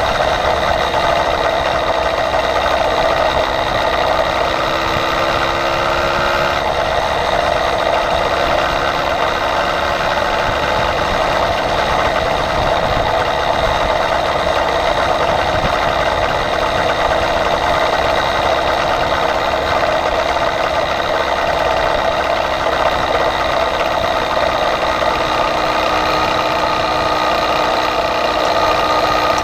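Small engine of a motorized bicycle running steadily at cruising speed, heard from on the bike itself. Its pitch rises briefly about four to six seconds in, then holds steady.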